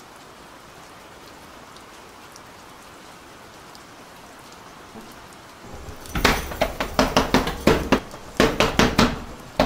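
Steady rain, then from about six seconds in, loud rapid banging on a door in several quick flurries of knocks.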